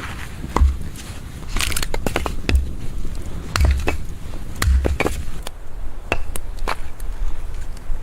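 Snow crunching: a string of sharp, irregular crunches with dull thumps about a second apart.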